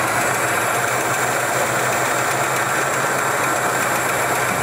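A 1977 Lincoln Continental's V8 idling steadily, freshly revived after sitting close to 40 years. It has a little lifter noise, which the crew puts down to oil not yet getting everywhere.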